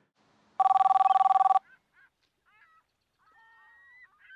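A phone ringing: one ring about a second long, a fast-warbling two-note trill, starting about half a second in. After it, birds chirp faintly.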